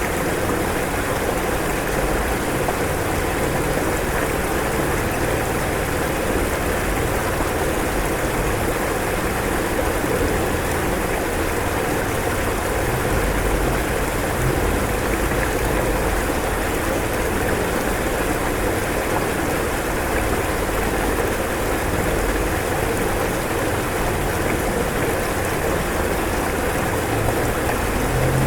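Fast-flowing floodwater rushing, a steady, loud, unbroken wash of water noise.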